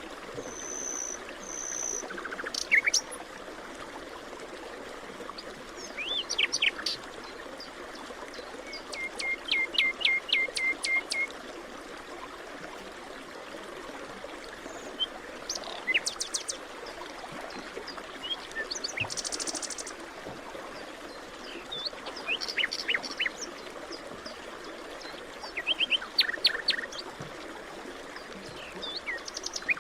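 Forest birds chirping and calling at intervals, including a quick run of about ten short repeated notes around ten seconds in, over a steady background hiss.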